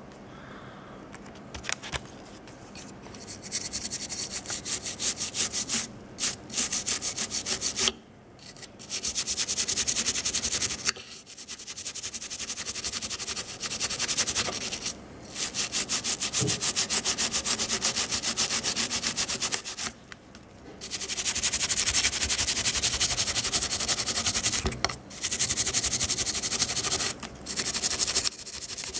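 Wet toothbrush scrubbing rapidly back and forth over the painted edges of a plastic miniature, in runs of a few seconds with short pauses between. The bristles are rubbing paint off the edges to give a chipped, weathered look.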